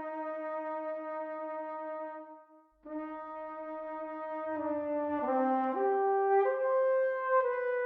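Solo cornet from Fracture Sounds' Brass Band Soloists sample library playing a slow legato melody. One long held note fades out about two and a half seconds in; after a short pause a new note starts, and from about halfway through the line moves on in several smooth steps, mostly upward.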